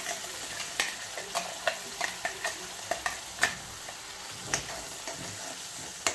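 Onion-tomato masala paste frying in oil in a metal kadhai with a steady sizzle, while a metal spoon stirs it, giving irregular sharp clicks and scrapes against the pan. The masala is being roasted (bhuna) on low heat and is almost done.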